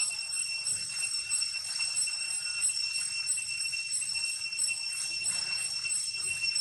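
Steady, high-pitched insect drone with a faint pulsing shimmer, ringing on without a break.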